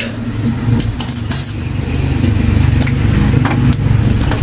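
An engine running with a low rumble, growing louder about two seconds in, with a few short clicks over it.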